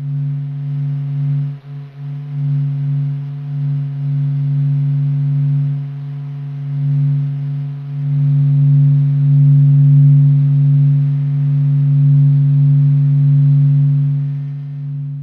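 Sonified 'sound of the Sun': a steady, low, humming drone with faint higher overtones, swelling louder over the second half.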